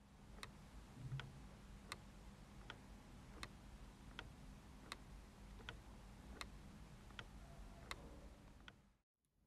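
LEGO Technic pendulum clock's escapement ticking faintly at a steady 80 beats a minute, in alternating louder and softer ticks (tick-tock). The ticking cuts off just before the end.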